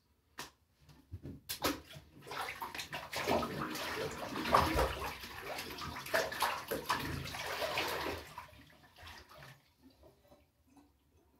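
Bath water sloshing and splashing in a bathtub as a person moves about in it. A couple of light clicks come first, then several seconds of irregular splashing that dies away near the end.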